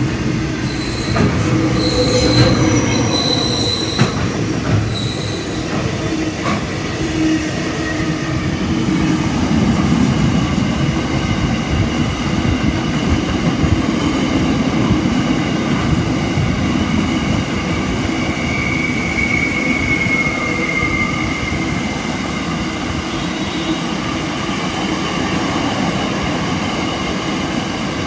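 Long freight train rolling past close by, a steady rumble of wagons on the rails. Brief high wheel squeals and clicks in the first few seconds, and a longer wheel squeal about two-thirds of the way through.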